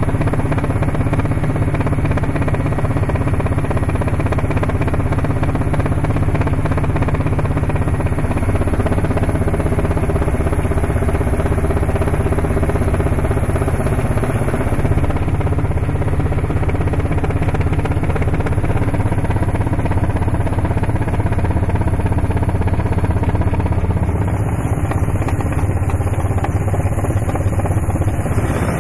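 Steady, loud drone of a helicopter's engines and rotor, heard from on board.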